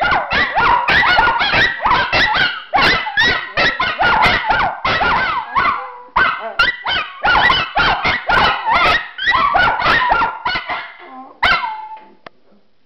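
Miniature schnauzers barking, yipping and howling together in a rapid, overlapping chorus, with short sliding howls among the barks. It pauses briefly about halfway, then dies away near the end.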